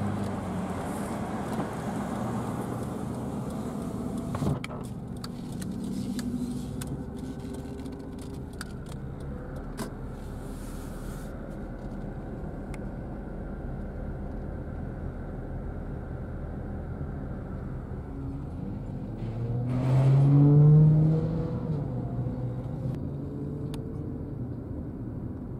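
Car driving, heard from inside the cabin: steady engine and tyre rumble with scattered light clicks in the first half. About twenty seconds in, a louder engine sound swells with a pitch that rises and falls, then fades back.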